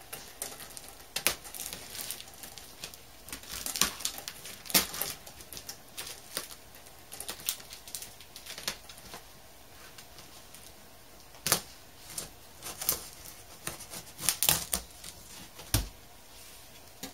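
A utility knife cutting the packing tape and cardboard of a large shipping box, giving irregular scrapes and clicks, with one dull knock near the end.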